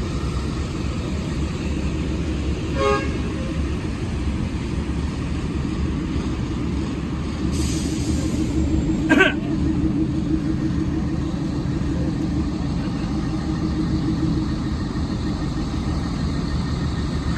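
Hino RM 280 bus's diesel engine running steadily, with two short horn toots, about 3 s in and about 9 s in, and a brief hiss just before the second.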